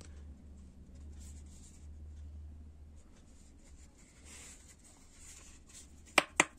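Stiff leather knife sheath being handled and turned over in the hands: faint rubbing and scraping over a low steady hum. Near the end, three sharp clicks in quick succession, about a fifth of a second apart.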